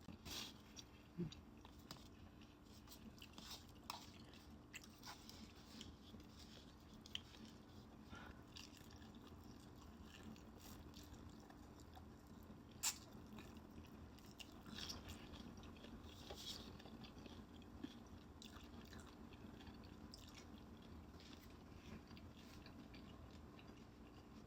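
Quiet chewing and biting of fried chicken close to the microphone: scattered short crunches and clicks, the sharpest about halfway through, over a faint steady hum.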